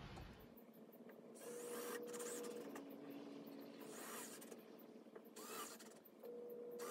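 Faint cordless drill driving screws into the camper's wall, spinning up in several short runs of a steady whine, one about a second and a half in and another near the end.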